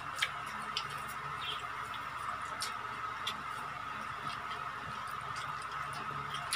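Soft, irregular clicks of chewing and mouth sounds while eating, over a steady faint background hum.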